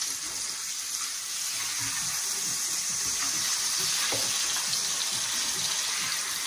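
Cobia fillets sizzling in a hot skillet, a steady hiss, being seared on the second side just after the flip.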